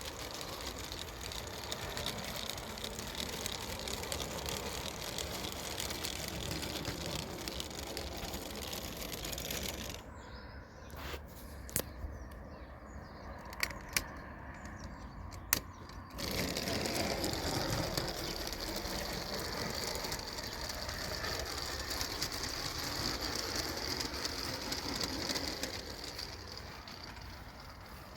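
Small Meccano electric motors and gearbox running with a steady whir. Partway through, the whir drops away for several seconds, during which a few sharp clicks are heard, then it resumes.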